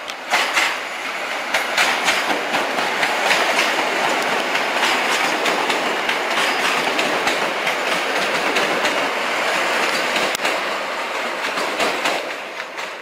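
PESA Elf electric multiple unit passing close by: a steady rush of wheel and running noise with repeated clickety-clack of the wheels over rail joints. It dies away near the end.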